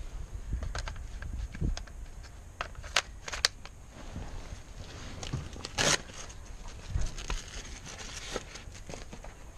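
Scattered sharp pops of paintball fire, two close together about three seconds in and a louder, longer one near six seconds, over rustling and scuffing of gear and feet in sand.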